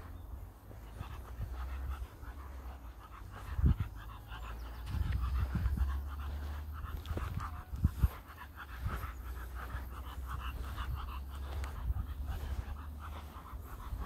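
An English bulldog panting rapidly, over a low rumble, with a couple of thumps about 4 and 8 seconds in.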